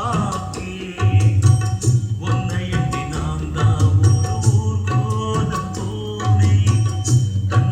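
Percussive music with a heavy, pulsing bass line and drum strikes over a melodic line, played as a speaker and amplifier test track.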